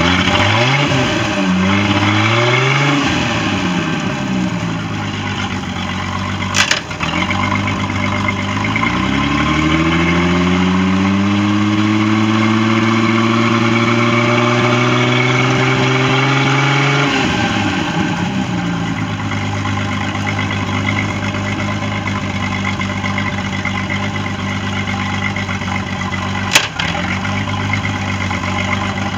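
Boat engine on an OMC Cobra sterndrive running out of the water on a flushing hose, revved up and down: quick blips in the first few seconds, a rise held at higher revs from about eight to seventeen seconds, then dropping back to a steady idle. A sharp click at about seven seconds and another near the end.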